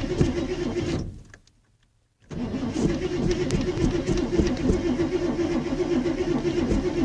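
Ford F-150's starter cranking the engine without it catching: the cranking stops about a second in, then starts again after a short pause and runs on to the end. A hard start on a truck that has sat for about four weeks.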